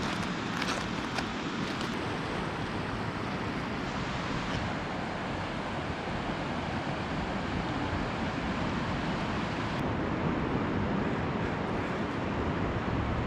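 Ocean surf breaking on the shore, heard as a steady rush.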